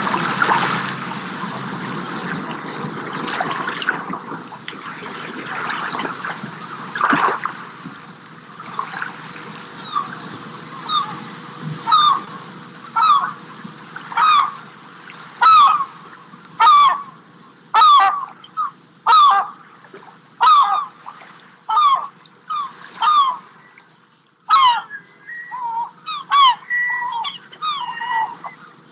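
Geese honking. Single calls come about once a second, faint at first and getting louder, then give way to a busier stretch of overlapping calls near the end. The first seconds hold an even outdoor rushing noise.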